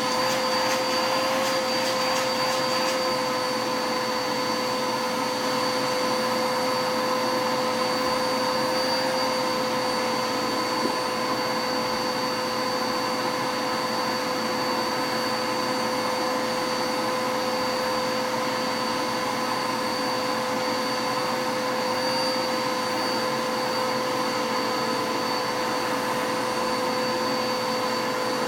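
Dirt Devil vacuum cleaner running at a steady whine while vacuuming, with a few faint ticks in the first few seconds.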